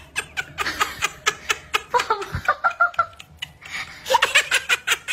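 A person laughing in quick, repeated giggling bursts, several a second.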